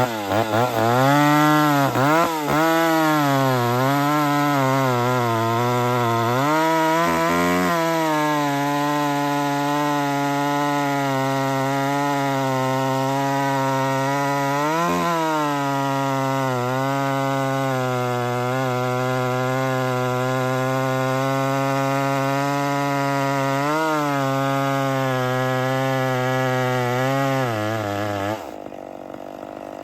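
Two-stroke chainsaw running hard in a cut: its pitch sags and recovers for the first several seconds, then holds steady with a couple of brief dips. Near the end the engine dies suddenly, having run out of fuel.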